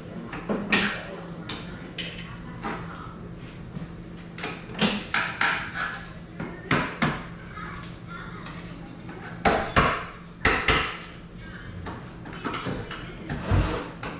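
Irregular knocks, clunks and clatters from hands-on installation work, as pieces and tools are handled and set down.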